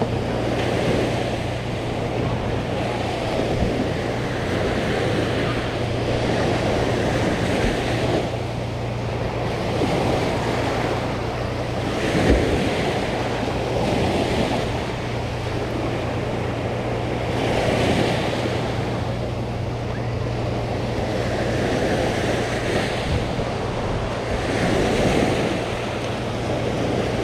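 Sea waves washing onto the shore, the surf swelling and easing every few seconds, with wind on the microphone.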